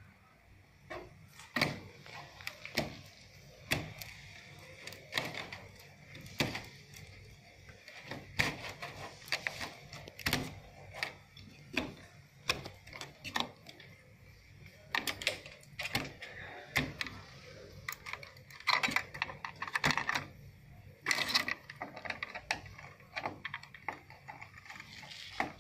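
Irregular clicks, taps and small knocks of hands and a screwdriver working on a TV main board: plastic cable connectors and wires being pulled and handled, busiest about two-thirds of the way through.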